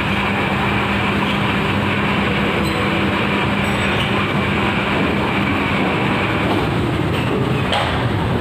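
Steady, loud machine noise from ventilation fans: an even rush with a low hum that fades out about six and a half seconds in.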